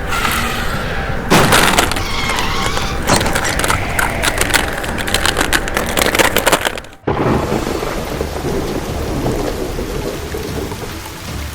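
Thunderstorm sound effect: a loud crack of thunder about a second in, followed by crackling and rumbling, then an abrupt cut at about seven seconds to steady rain.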